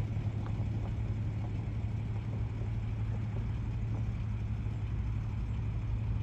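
1954 Kaiser Darrin's six-cylinder engine running steadily at low speed as the car pulls away: a steady low hum.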